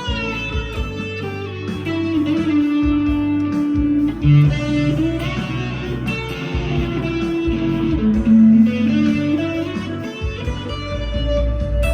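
PRS SE 245 electric guitar played through overdrive: a single-note lead line in B minor with held, sustaining notes and string bends near the start and again near the end.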